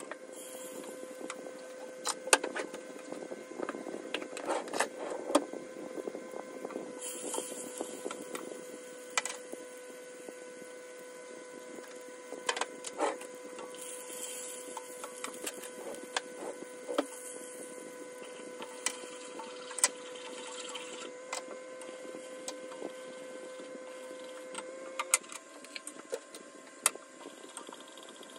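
Butter sizzling and foaming in a pot, then cooking with flour as a roux for béchamel sauce, stirred with a wooden spoon. The spoon knocks and scrapes against the pot many times. A steady hum runs underneath and stops near the end.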